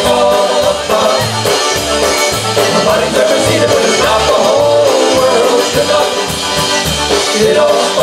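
Live polka band playing an upbeat polka, with a bass line stepping between notes about twice a second under the melody.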